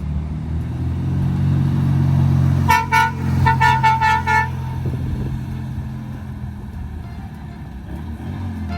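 Volkswagen sand rail's 1600cc flat-four engine idling steadily, with a quick series of short horn beeps about three seconds in.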